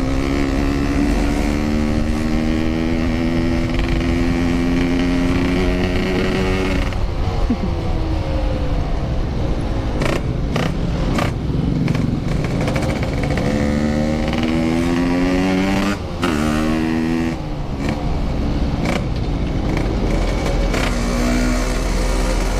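Motorcycle engine heard from on board, pulling up through the revs, with sudden drops in pitch about seven and sixteen seconds in as gears are shifted, then climbing again. Steady low wind rumble underneath.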